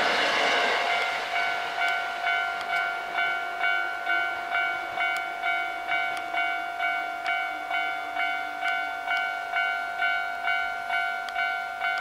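Electric train running noise dying away in the first second or so, leaving a Japanese railway level-crossing warning bell ringing steadily at about one and a half strikes a second.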